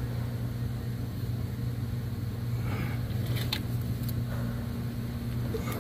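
A steady low electrical or mechanical hum of background machinery, with a few faint clicks about three and a half to four seconds in.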